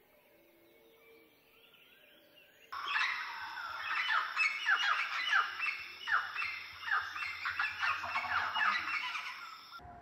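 Faint bird calls, then about three seconds in a loud chorus of many birds starts abruptly: quick falling chirps and calls overlapping one another. It cuts off suddenly just before the end.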